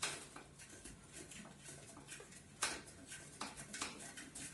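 Faint scraping and creaking as an IKEA LACK table leg is turned by hand on its screw into the tabletop. There are several short rasps, the loudest about two and a half seconds in.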